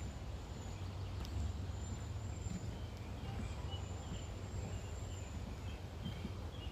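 Woodland ambience: short bird chirps from about three seconds in, over a thin, high, steady insect tone that comes and goes, with a low rumble underneath.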